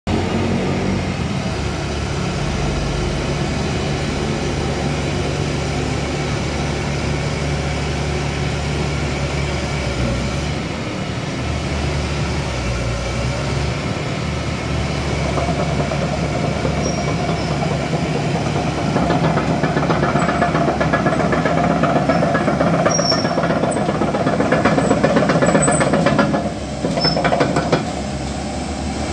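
Komatsu PC130 hydraulic excavator's diesel engine running as the boom and arm are worked, a steady machine sound with a mechanical rattle. It grows louder past the middle and dips briefly near the end.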